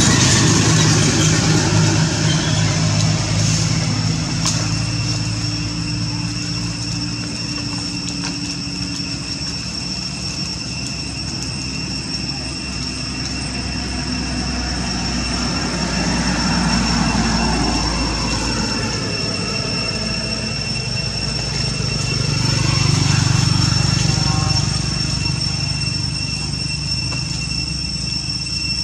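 Low rumble of an engine, louder near the start and again about three-quarters of the way through, under a steady high-pitched whine.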